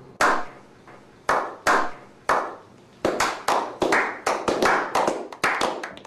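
A small group's slow clap: a few single claps, spaced a half-second to a second apart, then from about halfway a quicker, steady clapping of about three or four claps a second.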